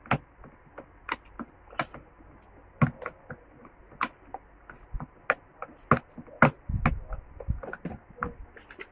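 A metal spoon stirring a thick face-mask paste of ground coffee, clay and rose water in a plastic tub, with irregular clicks and taps as the spoon strikes the sides, and a dull low bump about seven seconds in.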